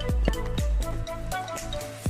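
Background music with a steady electronic dance beat, about two beats a second.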